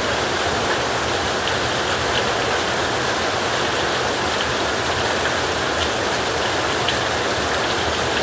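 Heavy rain falling steadily on a tin roof: a dense, even hiss with faint separate drop taps now and then.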